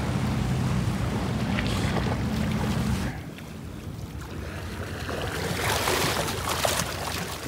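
Lake waves washing and splashing against a steel seawall, with wind on the microphone; the wash grows louder in the second half.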